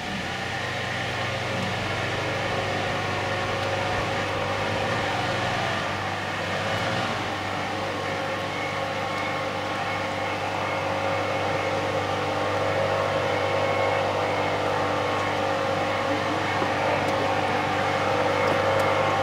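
Steady mechanical hum with several held tones, slowly growing louder, with no animal calls.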